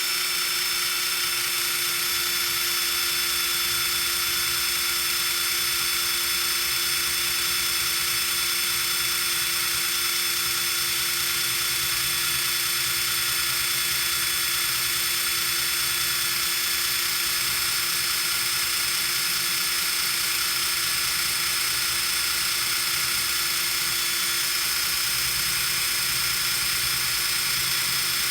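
Power drill running steadily with a constant whine, a standard steel twist drill bit boring into a steel plate.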